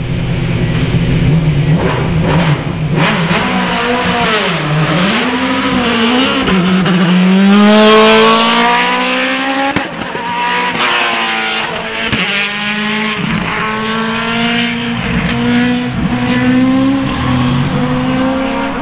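Osella FA30 sports-prototype race car's engine revving hard through a slalom course, its pitch dropping and climbing again over and over as it brakes and accelerates, loudest about eight seconds in.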